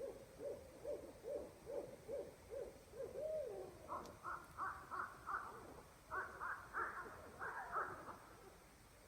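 Owls hooting: a rapid run of low hoots, about two or three a second, then higher hoots over the second half, ending in a wavering call.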